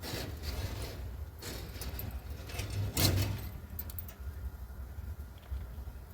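A few metallic clanks and rattles as the outdoor chimney's door is handled and shut, the loudest about three seconds in, over a steady low rumble of wind on the microphone.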